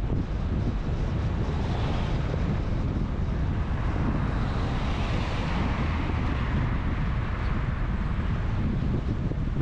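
Wind buffeting the microphone over the steady noise of a moving vehicle, with a hiss that swells and fades about halfway through.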